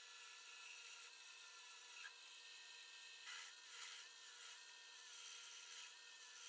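Wood lathe running faintly with a steady whine while a turning tool cuts a cove in the spinning wooden handle, peeling off shavings; the cutting noise swells briefly a little past halfway.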